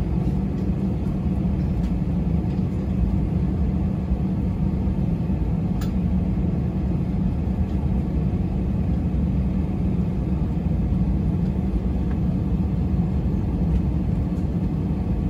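Cabin noise of a jet airliner taxiing: a steady low rumble of the engines at idle and the aircraft rolling along the taxiway, heard from inside the cabin.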